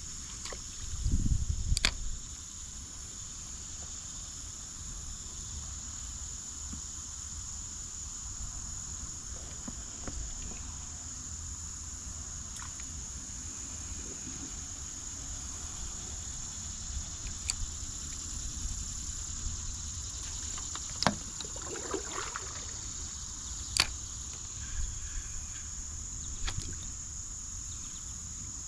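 Steady high-pitched insect chorus of summer crickets or cicadas carrying on throughout, over low rumble. A short low thump sounds about a second in, and a few sharp knocks come later, around twenty-one and twenty-four seconds in.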